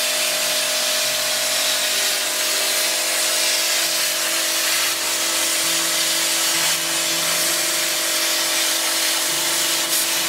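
Handheld plasma cutter cutting through steel sheet: a loud, steady hiss of the arc and air jet with a steady hum underneath.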